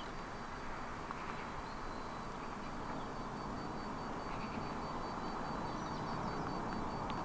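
Faint, steady outdoor background hum of distant city traffic carried across open water.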